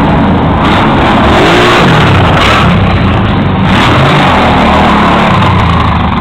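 ATV engine running under load while being ridden, loud and close. Its pitch rises and falls with the throttle several times.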